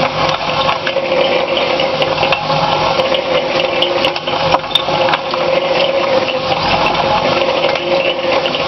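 Cement mixer drum turning as a ball mill: a steady mechanical hum from the drive, with steel balls, nuts and rods tumbling and clattering through a watery ash slurry as they grind incinerated metal chips. The clicks of the grinding media come thick and irregular over the hum.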